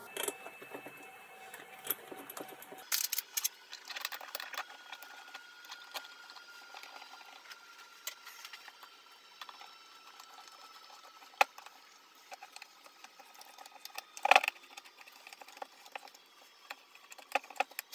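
Steel parts of a lathe radius-cutter fixture being handled on a bench: scattered light clicks and taps, with two sharper knocks later on, the second the loudest.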